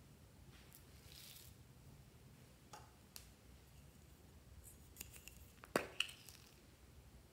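Faint handling of a hollow plastic gourd-shaped toy container: a soft rustle about a second in, then scattered light clicks and taps, loudest a quick double click near the end as the container's halves are pulled apart.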